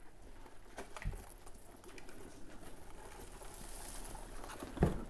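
Faint rustling and scratching of live desert locusts against cardboard and plastic as their box is shaken out into a plastic tub, with a light knock about a second in.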